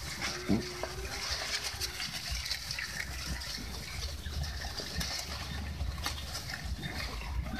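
Goats feeding from a trough of chopped dwarf elephant grass (odot): rustling of the cut leaves and crisp crunching as they pull mouthfuls and chew, in many quick irregular clicks.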